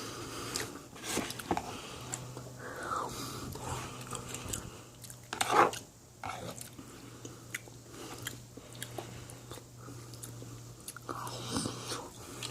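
Close-up sound of someone biting and chewing fresh mozzarella: irregular soft, wet mouth clicks and squelches, with one louder bite about five and a half seconds in.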